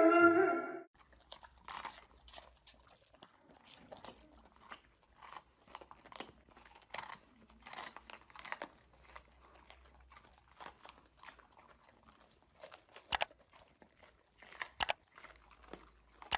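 A husky's howl breaks off within the first second. Then golden retrievers chew raw green bell peppers, with irregular wet crunches of the pepper flesh and a few louder bites near the end.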